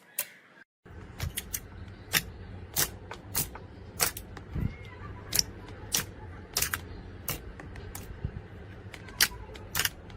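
Slime being pressed and squished by hand, making irregular sharp clicks and pops, a little over one a second, after a brief dead-silent break near the start.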